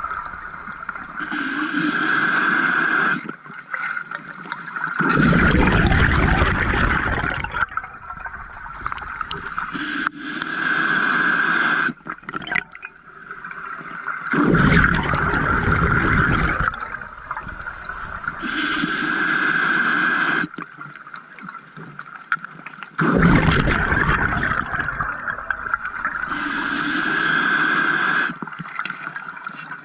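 Scuba diver breathing through a regulator. Each hissing inhale is followed a few seconds later by a loud rush of exhaust bubbles. There are about four inhales and three exhales, a full breath roughly every nine seconds.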